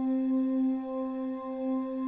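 Relaxing background music: a steady held tone with a ringing, singing-bowl-like quality that swells and fades gently.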